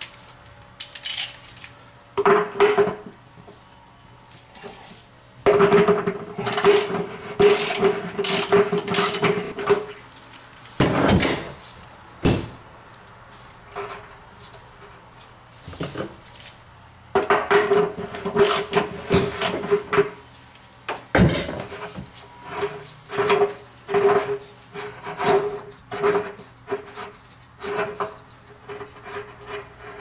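Ratchet wrench with a 1.5-inch element socket clicking in several bursts of rapid clicks, with a ringing metallic note, as the lower heating element of an electric water heater is unscrewed. A few single metal knocks fall between the bursts.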